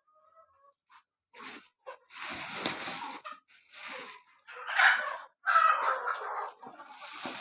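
Kadaknath chickens: a faint cluck in the first second, then a run of loud, scratchy rustling and scuffling bursts, with squawk-like calls in the later bursts.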